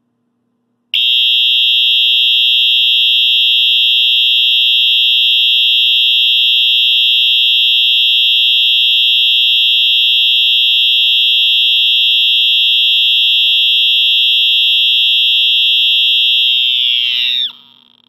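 Wheelock EHS-EL1 electronic fire alarm horn sounding its single shrill buzzer tone, steady and extremely loud. It starts about a second in, and near the end the pitch sags downward as it cuts off.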